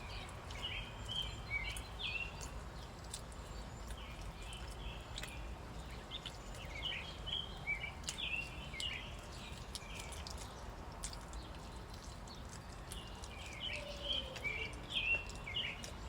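A songbird singing outdoors in quick chirped phrases, three bouts of song with pauses between them, over a steady low background rumble and scattered faint clicks.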